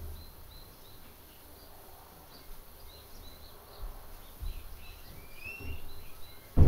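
Small birds chirping, short high calls repeated over a steady outdoor background, with one longer rising chirp about five and a half seconds in. Dull low thumps come now and then, the loudest right at the end.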